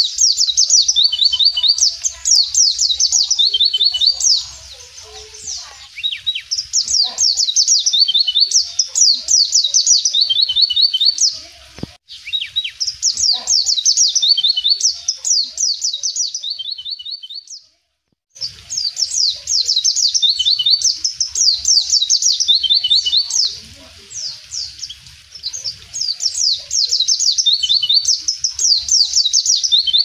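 A white-eye (pleci) singing long phrases of rapid, high twittering notes, one after another with short pauses between. The sound drops out completely for a moment a little after halfway.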